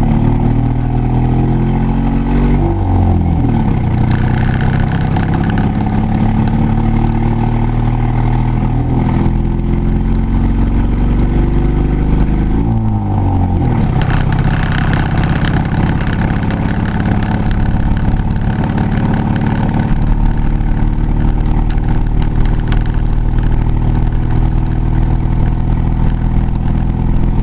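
Manual-transmission vehicle's engine pulling away and accelerating, heard from inside the cab. It climbs in pitch and drops back as the driver shifts up about three, nine and thirteen seconds in, then settles to a steady cruise.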